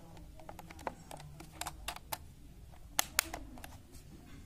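Irregular light plastic clicks and taps from a Dell wireless keyboard being handled, with two sharper clicks about three seconds in.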